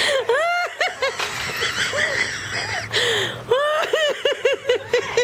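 High-pitched laughter in short rising-and-falling bursts, coming quicker, about five a second, in the last second and a half.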